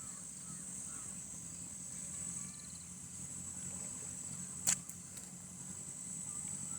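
Steady high-pitched insect chorus over a low, steady rumble, with one sharp click about two-thirds of the way through.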